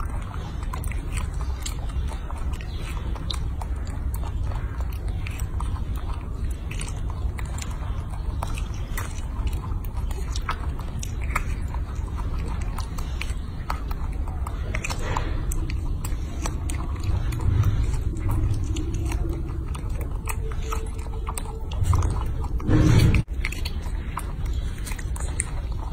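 Baby monkey biting and chewing a strawberry: many small wet clicks and smacks over a steady low rumble, with a louder short sound near the end.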